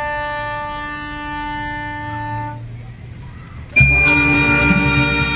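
Wind band of saxophones, brass and sousaphone holding a long sustained chord that fades away. About four seconds in, the full band comes in suddenly and loudly over a high held note.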